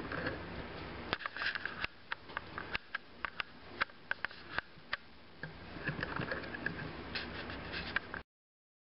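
Kittens licking and smacking soft chicken baby food from a spoon: an irregular run of small wet clicks over a steady hiss, cutting off suddenly near the end.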